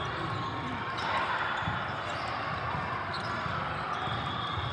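Busy volleyball hall: a steady echoing murmur of many voices, with a few sharp smacks of a volleyball being hit during a rally.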